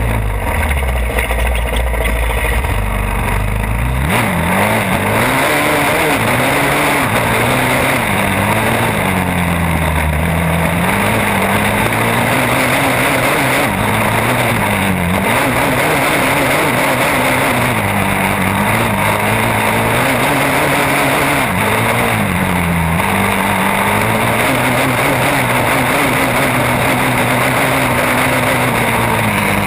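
Sport ATV engine pulling along a sandy trail, its pitch rising and falling again and again as the throttle is worked and gears change. It runs lower for the first few seconds and picks up about four seconds in, over a steady rush of wind noise.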